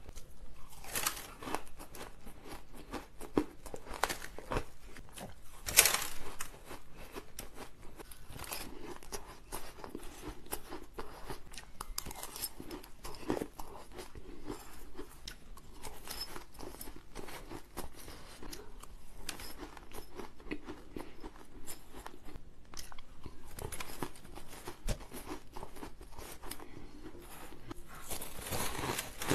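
Shaved ice being bitten and chewed close to the microphone: a dense, irregular run of crunches, the loudest about six seconds in.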